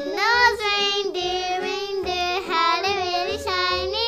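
A child singing alone, one high voice holding long notes with slides between them.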